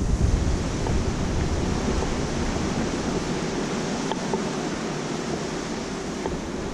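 Steady rush of seawater churning along the side of a moving cruise ship, mixed with wind buffeting the microphone; the low wind rumble eases for a few seconds in the middle and picks up again near the end.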